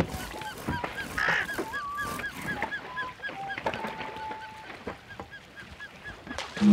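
A goose-like bird honking in a quick run of short, evenly spaced calls, about four a second, mixed with knocks and splashes from paddled boats.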